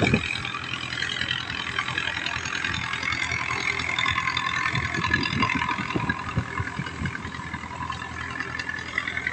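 Engine of a passing wooden river cargo boat running steadily, with the rush of water from its bow wave. Irregular low thumps come and go, the strongest at the very start.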